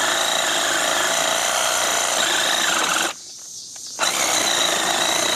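Ryobi 18-volt ONE+ cordless power tool motor running on another speed setting, with a steady whine. It stops about three seconds in, then starts again a second later.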